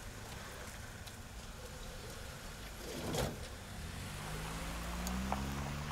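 Van engine running, a door shutting with a single knock about three seconds in, then the engine rising steadily in pitch as the van pulls away.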